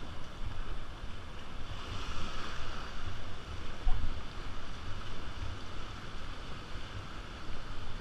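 River water rushing and splashing around a paddled raft, with wind buffeting the microphone and a single thump about four seconds in.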